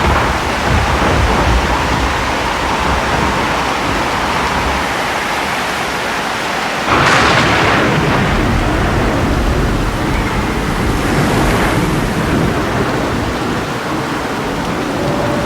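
Thunderstorm: steady heavy rain with low rolling thunder. A sudden loud thunderclap comes about seven seconds in and rumbles away over the next few seconds.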